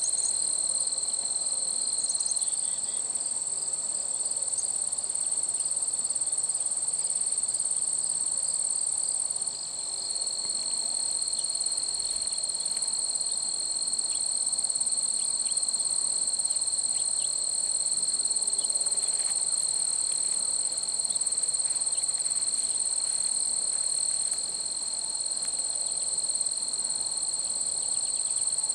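Continuous high-pitched insect trilling, cricket-like, steady and unbroken throughout.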